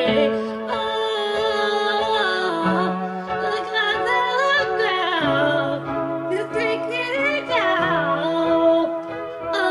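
A woman singing karaoke along to a backing track, her voice wavering over low held notes that change every two seconds or so.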